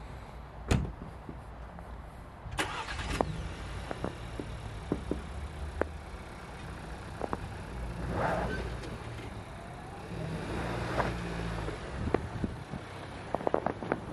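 Škoda Octavia: the door shuts with a sharp thud about a second in, then the engine starts at about two and a half seconds and runs steadily, with small crunches and clicks near the end as the car moves off over packed snow.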